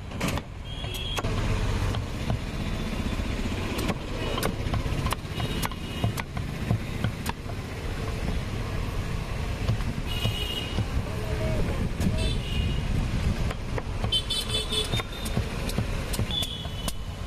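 Steady low rumble of passing road traffic, with sharp chops of a large knife cutting into the rind of a raw jackfruit at irregular intervals.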